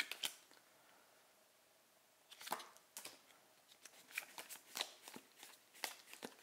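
Trading cards handled in a stack, faint clicks and flicks of card against card. Two clicks at the start, a pause of about two seconds, then clicks that come more often toward the end.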